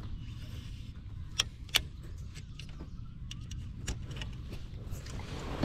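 Fishing rod and baitcasting reel being handled in a kayak: a few sharp clicks and light clacks, the two loudest close together about a second and a half in, over a low steady rumble.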